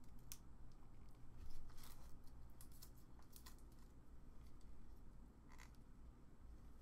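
Faint scattered clicks and crinkling as a plastic webcam and its protective tape are handled and peeled, with a couple of sharper clicks in the first half and one near the end.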